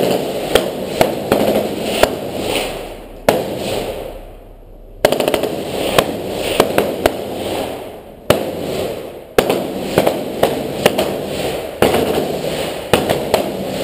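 Rifle gunfire inside a concrete-block building: irregular single shots, a few very loud ones followed by a long echoing smear, with smaller, fainter shots in between.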